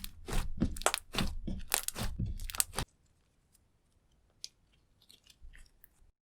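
Slime with lipstick mixed in, squished and folded by hand: a quick series of crackling squelches, about three a second, stopping abruptly about three seconds in, followed by a few faint ticks.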